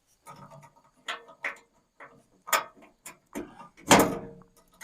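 Irregular mechanical clicks and knocks, with a heavier knock about four seconds in.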